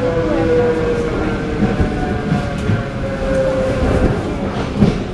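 ED9M electric multiple unit heard from inside the carriage while running: a steady rumble with the wheels knocking over rail joints, and a whine that falls slightly in pitch.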